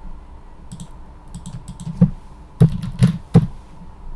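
Light keystrokes on a computer keyboard as a number is typed in, followed by four louder, sharper clicks in the second half.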